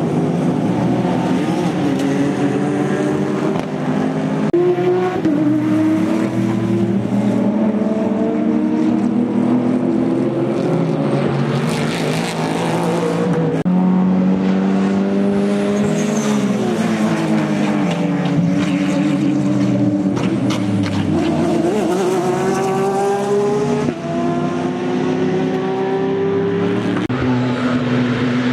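Several race cars with loud open exhausts passing one after another at racing speed, their engine notes overlapping. The pitch climbs in steps as they shift up through the gears and sweeps down as each car goes by.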